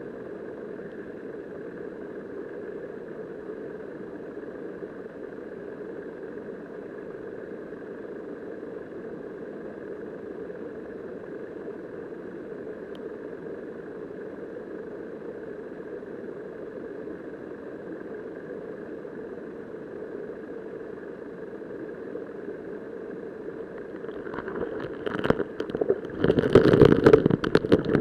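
Steady rushing hum of river current picked up by a camera submerged on the riverbed. In the last few seconds it turns louder and uneven, with bursts of turbulent water knocking against the camera.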